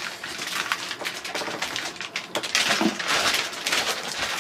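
Packing material being handled and pulled out of a box: a dense run of crinkling, crackling and small clicks and knocks.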